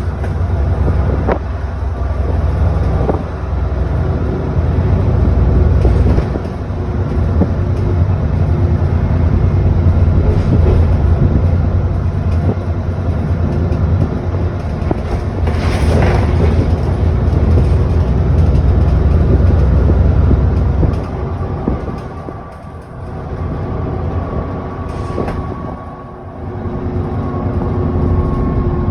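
ADL Enviro400 double-decker bus heard from on board, its engine and drivetrain running under way with a heavy low drone. The drone drops away briefly about three quarters of the way through and again near the end, and a steady whine comes through in the later seconds.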